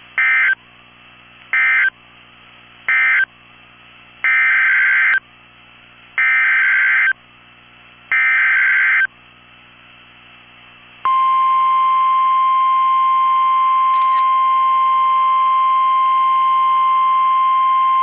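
NOAA Weather Radio Emergency Alert System tones. Three short digital SAME bursts close out the previous warning, then three longer SAME header bursts announce the next warning. About eleven seconds in, the steady 1050 Hz weather-radio warning alarm tone starts and holds, with faint radio hiss between the bursts.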